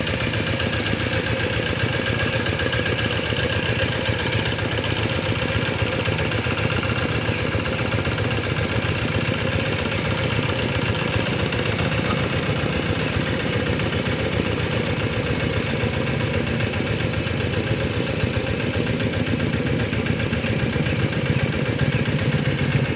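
Diesel engine of a walking hand tractor (rice-field plough/harrow) running steadily at a constant speed with a fast, even chugging.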